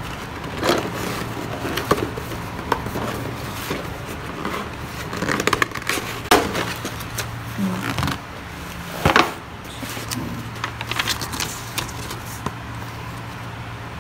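A cardboard model-kit box being slid open and its contents handled: scraping and rustling of cardboard and plastic-bagged parts with a few sharper knocks, the loudest about nine seconds in, over a low steady hum.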